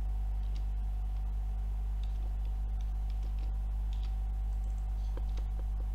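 Steady low electrical hum with a faint constant high tone, and a few faint scattered clicks of computer keyboard typing.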